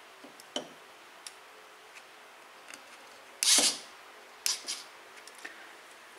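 Hands handling jumper wires and alligator clips on a breadboard: a few light clicks, and a louder brief scrape or rustle about three and a half seconds in, followed by two quick clicks.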